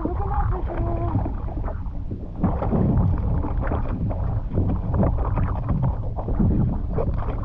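Strong wind buffeting the microphone on a fishing kayak out on open water, a heavy, uneven rumble with rough water noise over it.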